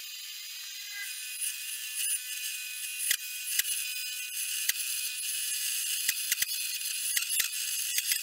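Hole saw in a drill press cutting into a wooden board: a steady high rasp, with sharp clicks that come more and more often from about three seconds in.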